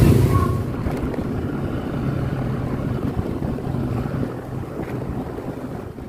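Wind rumbling on the microphone over a low, steady engine hum.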